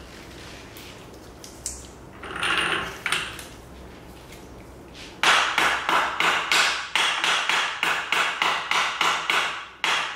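Hammer blows driving a steering knuckle onto the bottom of a front strut: a few scattered knocks, then from about halfway through a steady run of sharp metal strikes, about three a second.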